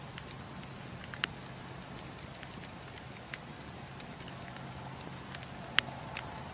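Wood campfire burning: a steady hiss with scattered sharp crackles and pops from the burning logs, the loudest pop near the end.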